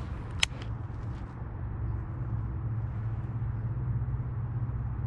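A baitcasting reel clicks once, sharply, about half a second in, over a steady low hum.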